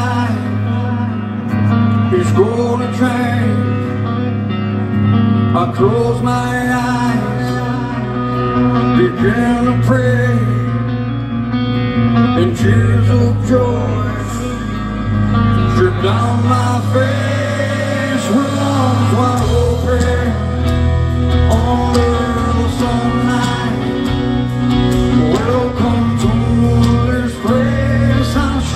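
Live band playing a song in an arena, heard from the crowd: electric guitars, bass and drums, with a male singer's voice over them.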